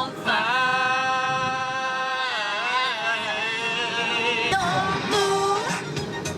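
Singing with music: one voice holds a long steady note for about two seconds, then wavers and slides, and holds another shorter note near the end.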